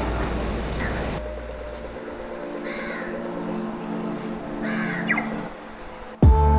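A crow cawing twice over quieter street background, after about a second of food-court crowd noise. Music starts near the end.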